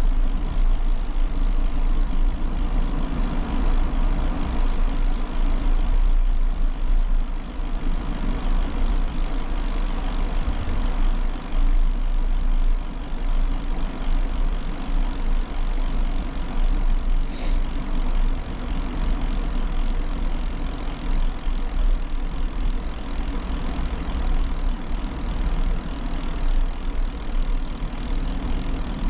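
Steady wind rumble buffeting a handlebar-mounted action camera's unfiltered microphone while a bicycle rolls along a concrete path, mixed with tyre noise. A brief high chirp comes a little past halfway.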